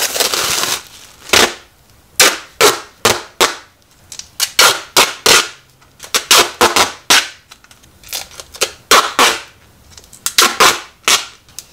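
Orange duct tape being pulled off the roll in many short, loud rips, coming in quick bursts of two to four, as a styrofoam block is taped up.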